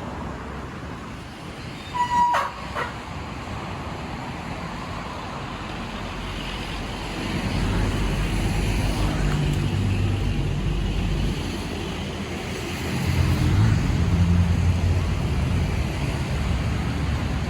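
Roadside traffic with a heavy vehicle's engine rumbling past, growing louder from about seven seconds in and loudest a little after halfway. A brief high beep sounds about two seconds in.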